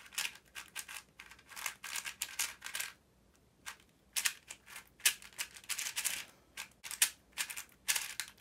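Quick plastic clicking and clacking of an MGC 4x4 speedcube's layers being turned fast by hand, in rapid runs of turns with a pause of about a second roughly three seconds in.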